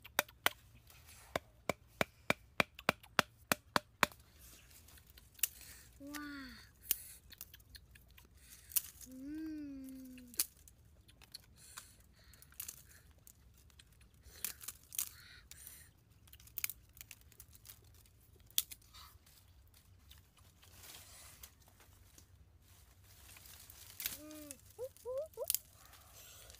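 Sharp chopping strokes of a blade into a wooden stake, about three a second for the first four seconds. Then scattered cracks and rustling of dry sticks and leaves as twigs are handled and snapped, with a few brief pitched calls.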